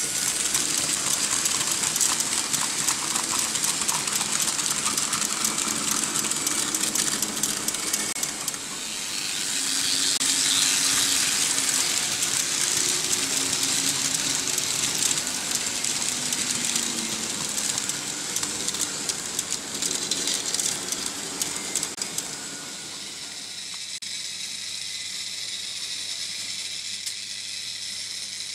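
Märklin H0 model trains running on metal M-track: a continuous rattle of small wheels over the rails with many fine clicks, a hiss and the whir of the locomotive motors. It grows quieter about three quarters of the way through.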